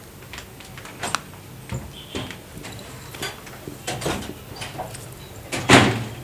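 Scattered light clicks and knocks of a person handling small objects while seated on a sofa, with one louder sudden noise near the end.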